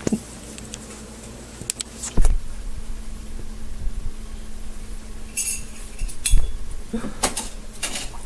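Kitchenware at a sink clinking and knocking: a handful of separate sharp clicks and clunks of dishes and utensils, with a brief hiss about halfway through, over a steady low hum.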